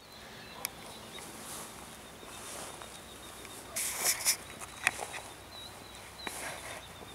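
Outdoor field ambience: a faint steady high-pitched tone, with a short cluster of sharp crackles and rustles in grass about four seconds in and a few single clicks.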